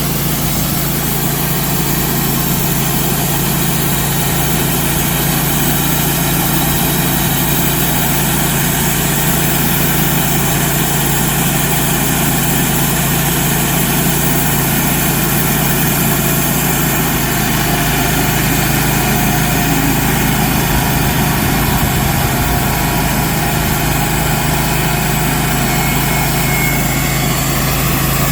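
Engine running steadily at a constant speed, its low hum turning rougher and more uneven about two-thirds of the way through.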